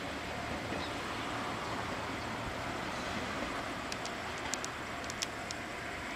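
Chizu Express HOT3500 series diesel railcar moving slowly across station points, its diesel engine running steadily. A few light, sharp clicks come from the wheels over the pointwork about four to five seconds in.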